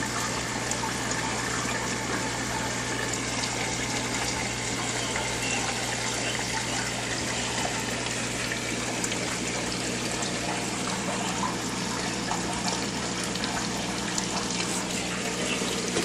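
Aquarium filter running: steady splashing and trickling of water with a constant low hum from its pump motor.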